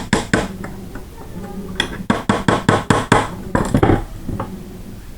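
Hammer tapping a pin punch to drive a steel roll pin into the bolt catch of a 3D-printed AR-9 lower receiver, with sharp metallic strikes at about five a second. There are two strikes, a pause of about a second and a half, then a quick run of about eight strikes, then a few lighter taps.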